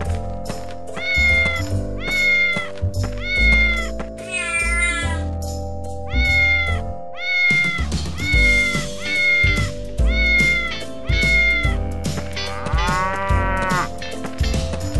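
A string of cat meows, about two a second, repeated over cheerful background music. A different, warbling animal call breaks in briefly twice, once near the middle and once near the end.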